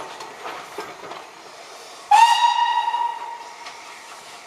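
Steam whistle of Southern Railway locomotive 850 Lord Nelson giving one blast about two seconds in, rising slightly in pitch as it opens, held about a second and then trailing away. Under it the train runs and hisses as it pulls out.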